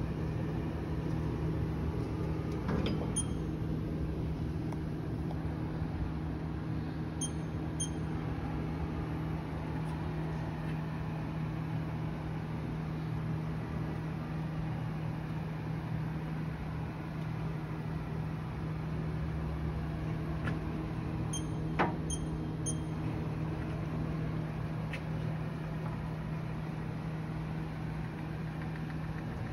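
Haas TM-2 vertical machining center running with a steady, even hum, with a few light clicks along the way and one sharper click about two-thirds through.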